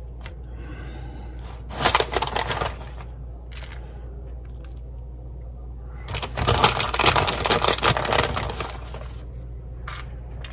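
Crinkling, crackly rustling of food packaging being handled, in two bouts: a short one about two seconds in and a longer one of two to three seconds from about six seconds in.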